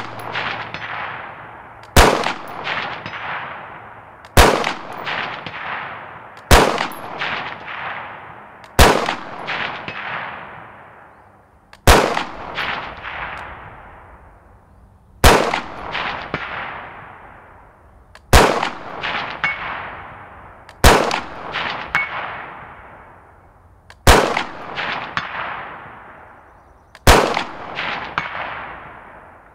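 An AR-15 special purpose rifle in 5.56 firing slow, aimed single shots from the bench: ten shots about every two to three seconds, each followed by a long fading echo.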